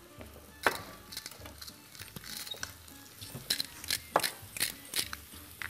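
Mixed mushrooms sizzling in hot olive oil in a frying pan, with scattered sharp knocks and clinks from stirring the pan. The clicks are thickest in the second half.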